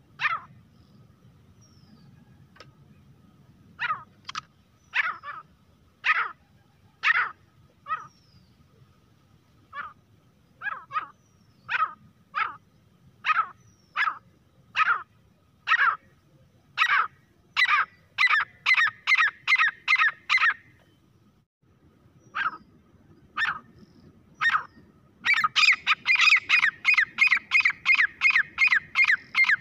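Grey francolin calling: sharp notes repeated about once a second, quickening into a fast run, then breaking into a rapid, dense series of calls for the last few seconds.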